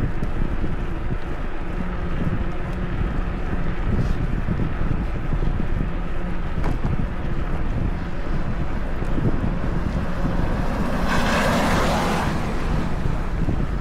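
Wind buffeting the action camera's microphone as the bike rides along, a steady low rumble. About eleven seconds in, a brief rushing hiss rises and fades over a second or so.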